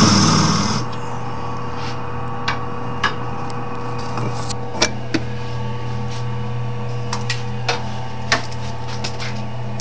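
Wood lathe running with a steady motor hum. A turning tool scraping the spinning wood stops about a second in, and scattered light clicks and taps follow.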